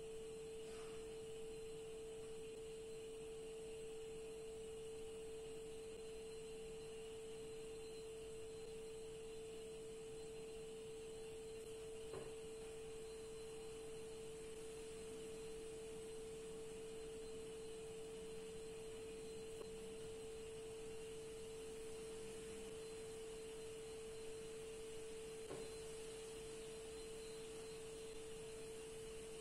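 A faint, steady hum at one mid pitch, with two faint soft taps about twelve and twenty-five seconds in.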